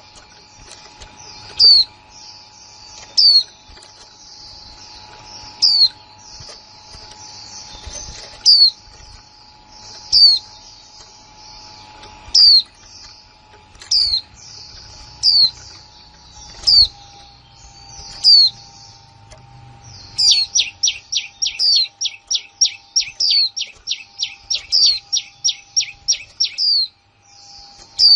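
Female white-eye calling: short, sharp notes falling in pitch, about one every second and a half, then from about twenty seconds in a quick run of about three notes a second. It is the plain, untrained 'líu' call of a female white-eye, the kind keepers play to spur male white-eyes into singing.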